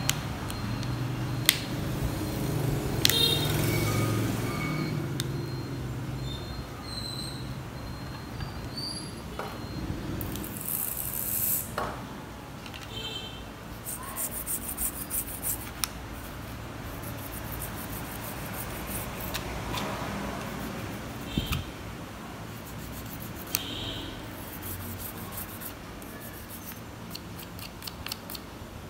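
Hand work on a small plastic phone: sharp clicks as the housing parts are pressed and snapped together, and runs of quick scratchy strokes as a toothbrush scrubs the plastic, over a low steady hum.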